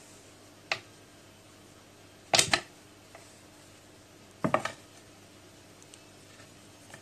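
A cat's paws and a wand toy knocking and tapping against a plywood cat bed while the cat plays: one light tap about a second in, a loud clatter of several knocks about two and a half seconds in, and another short cluster about four and a half seconds in.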